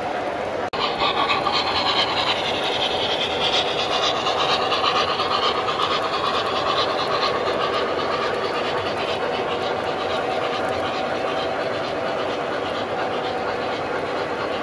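Model freight train rolling past: a steady rumble of metal wheels on rail with a hissing whine. The sound cuts briefly less than a second in, then resumes louder.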